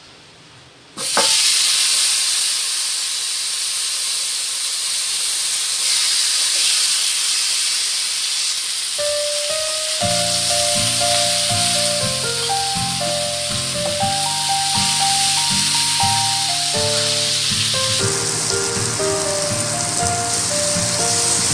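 Lamb chops sizzling on a hot ribbed grill pan: a loud, even hiss that starts suddenly about a second in as the meat goes onto the pan. Background music with a simple melody joins after about nine seconds.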